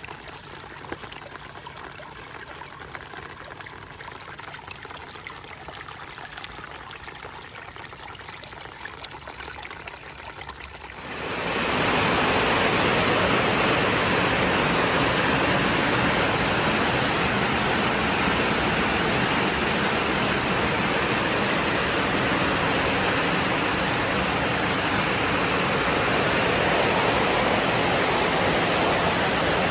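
Heavy tropical rain: a softer spatter of drops at first, then about eleven seconds in a sudden jump to a much louder, dense, steady downpour.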